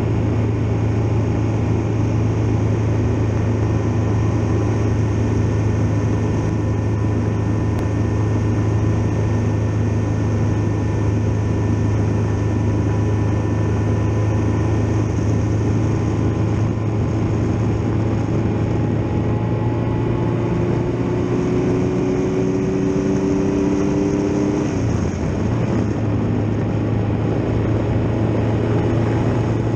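Triumph Tiger Explorer XRx motorcycle riding at a steady pace, its three-cylinder engine droning low under heavy wind and road noise. Faint tones slowly rise in pitch in the second half and drop off about 25 seconds in.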